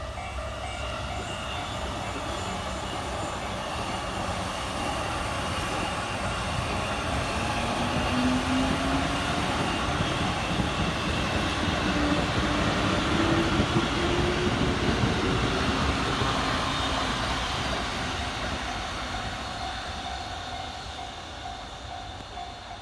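A JR electric train passing a level crossing at speed: wheel and rail noise swells to a peak around the middle and then fades, with a motor whine rising in pitch as it goes by. The crossing's warning bell rings at the start and again near the end as the train noise dies down.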